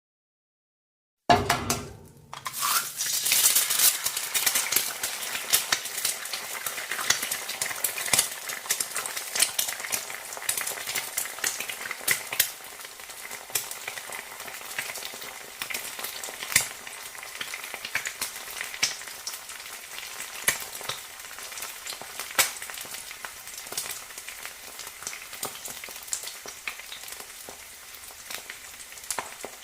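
An egg frying in a hot pan: sizzling starts suddenly a little over a second in, then goes on as a steady sizzle with scattered pops and crackles, settling a little quieter about halfway through.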